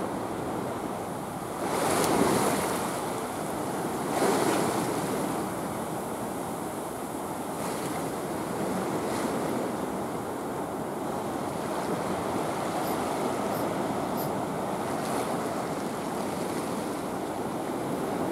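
Seawater washing against a breakwater in a steady wash, with two louder surges about two and four seconds in.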